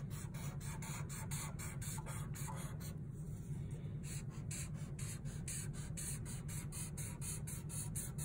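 Black permanent marker drawing a zigzag line on paper: a run of short scratchy strokes, about four a second, easing off briefly about three seconds in, over a steady low hum.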